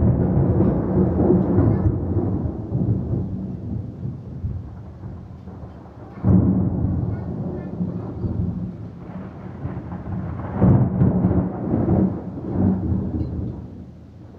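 Thunder rumbling in long rolls. A loud roll at the start fades over several seconds, a new peal breaks in about six seconds in, and more rolls follow around eleven to thirteen seconds in before it dies down.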